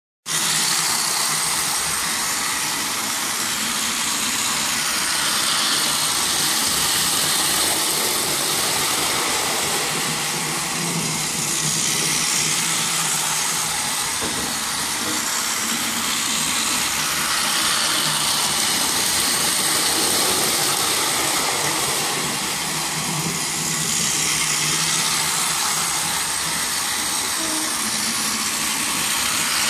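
Battery-powered toy train running on plastic track: the whirr of its small electric motor and the rattle of plastic wheels on the rails, steady, growing a little louder and softer as it goes.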